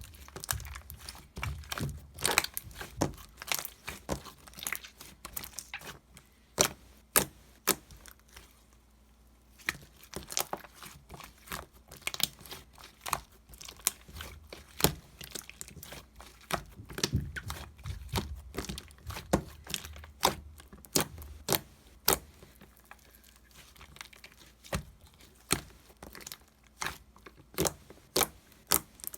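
Slime being squeezed, stretched and pressed by hand, giving off irregular sharp clicks and pops as air pockets in it burst, with a short lull a few seconds after the first third.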